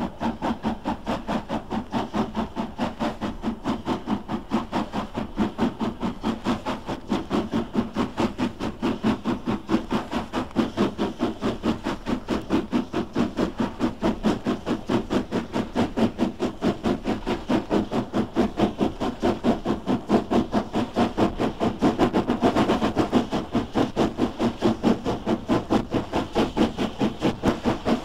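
LMS 'Crab' 2-6-0 steam locomotive working hard up a 1 in 100 gradient with a goods train, its two-cylinder exhaust beating evenly at about three to four beats a second. About 22 seconds in, the beats briefly run closer together and louder.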